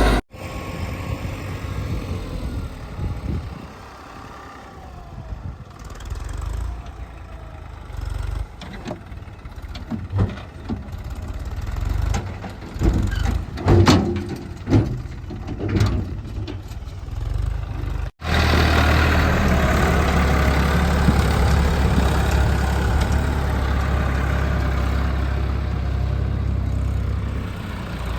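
Heavy diesel engine of earthmoving machinery running unevenly, with scattered metallic clanks and knocks. After a sudden break about two-thirds of the way in, a louder, steady low engine hum follows.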